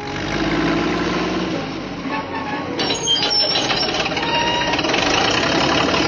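Heavy diesel construction machinery running steadily: a tracked excavator working as it loads dirt into an articulated dump truck.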